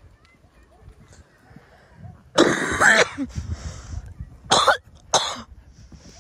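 A person coughing close to the microphone: a long, harsh cough about two and a half seconds in, then two shorter coughs near the end.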